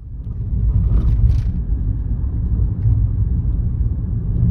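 Steady low rumble of a 30-series Toyota Prius on the move, with no knock from the steering: the replaced steering column has cured the noise. A few faint short clicks come about a second in.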